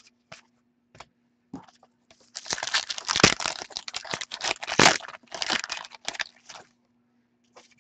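A hockey card pack's shiny wrapper being torn open and crinkled by hand, a dense crackling from about two and a half seconds in to about six and a half seconds, after a few light handling clicks.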